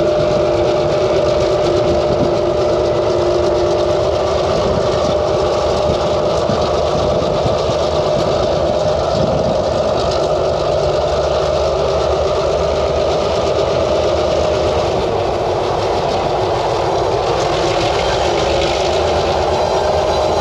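Diesel locomotive of an ore train running, a loud steady engine rumble with a constant whine over it.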